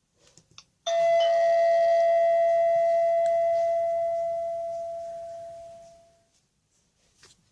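A Nokia 1200 ringtone played on a Sony Ericsson W595 phone: a single bell-like chime strikes about a second in and rings out, fading away over about five seconds. A few faint clicks come just before it.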